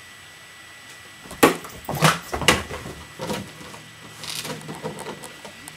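A run of sharp knocks and scuffles, loudest about a second and a half in and twice more over the next second, as a dog moves about after a frisbee.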